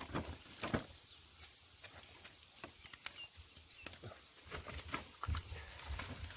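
Irregular wet slaps, clicks and rustles of live fish being picked out of a wet drag net and dropped into a woven plastic sack, with the fish flapping.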